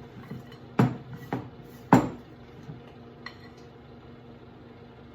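A metal utensil clinking against a mixing bowl while stirring glaze: three sharp clinks about half a second apart, the last the loudest, with a few fainter taps around them.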